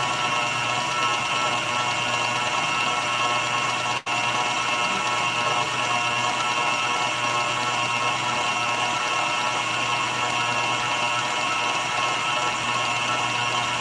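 Stand mixer running steadily, its motor whirring at a constant pitch as the wire whisk beats egg whites and sugar into meringue, past soft peak and heading for stiff peak. The sound cuts out for an instant about four seconds in.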